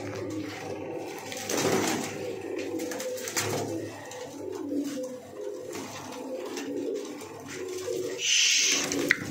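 A flock of domestic pigeons cooing, with low overlapping coos going on continuously. There is a short rustle about eight seconds in.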